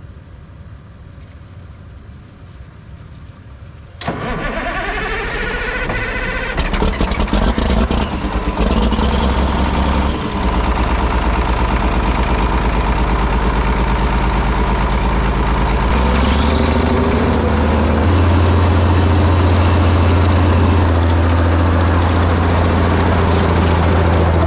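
Caterpillar 977 crawler loader's diesel engine, sitting 37 years, cranking over about four seconds in with a rising whine, then catching and running. About two-thirds of the way through it picks up speed and runs louder and steadier.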